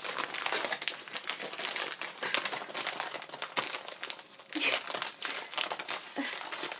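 Plastic mailing bag crinkling and rustling continuously as it is handled and pulled open, with a couple of short vocal sounds near the end.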